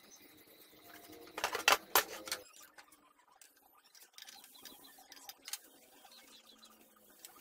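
Handling noise from an old cast-iron sewing machine head being worked on and tipped back on its wooden table: a quick cluster of loud knocks and clicks about a second and a half in, then a few quieter clicks.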